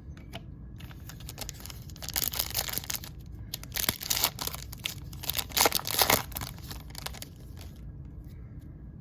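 Crinkling and rustling of glossy trading cards and their wrapper being handled, in irregular bursts for about six seconds before settling down.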